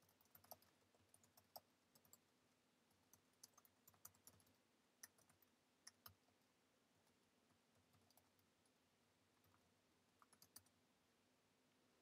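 Faint computer keyboard typing: scattered single keystrokes through the first six seconds or so, then a few more near the end.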